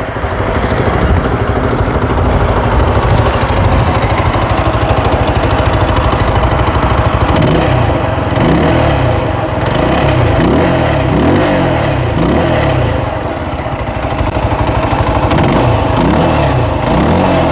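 Zontes 125 Scrambler's single-cylinder 125cc engine idling, then revved repeatedly with quick throttle blips, the pitch rising and falling about once a second, with a brief lull before the blips resume near the end.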